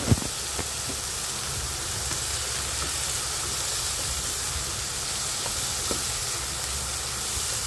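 Carrots and green beans sizzling steadily in a hot pan as they are stir-fried, with a sharp knock just after the start.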